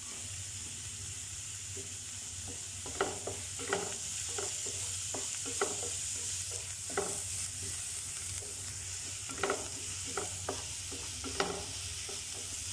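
Chopped onion, grated carrot and green chilli sizzling steadily in oil in a nonstick frying pan, while a wooden spatula stirs them with a dozen or so short, irregular scrapes and taps against the pan.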